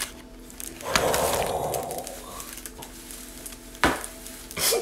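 Crinkling and rustling of a hot chip challenge snack packet as it is handled and opened, with a single sharp snap a little before the end.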